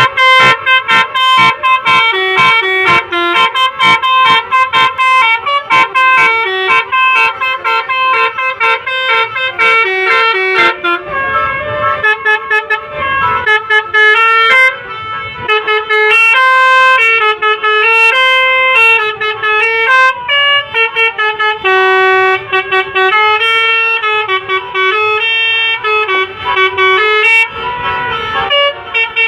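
Basuri multi-tone 'telolet' bus horn playing a dangdut koplo melody. It plays quick, clipped notes for about the first ten seconds, then longer held notes.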